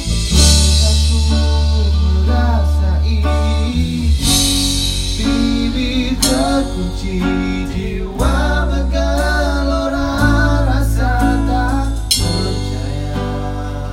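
A band playing a song at a sound check, with a singer, guitar and a deep, sustained bass line, and bright crashes about 4 and 12 seconds in.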